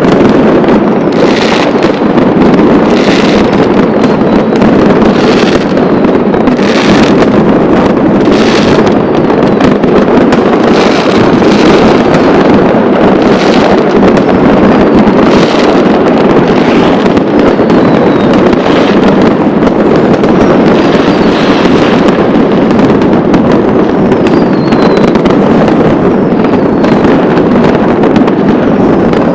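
A dense, unbroken barrage of New Year's Eve fireworks, many going off at once, with sharper bangs standing out every second or two and a few faint whistles in the second half.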